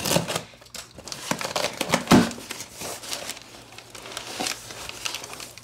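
A cardboard shipping box being opened by hand: tape and flaps rustling and scraping, and crumpled packing paper crinkling, with a heavier knock about two seconds in.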